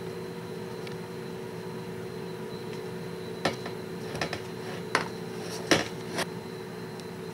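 About six sharp clinks and knocks of hard dishware being handled, bunched in the middle and latter part, over a steady low hum.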